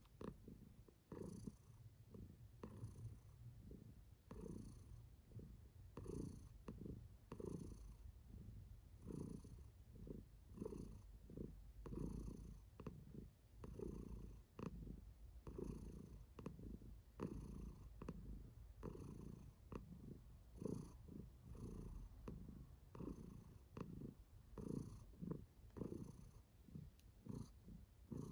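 Domestic cat purring close up, a low steady rumble that swells with each breath in and out, a little over once a second. It is the purr of a contented, relaxed cat.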